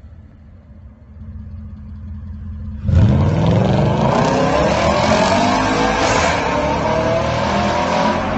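Audi S5 4.2 V8 with a Capristo exhaust idling with a low rumble. About three seconds in it pulls away hard: the exhaust suddenly gets loud and the engine note rises steadily for about five seconds as the car accelerates, echoing in the tunnel.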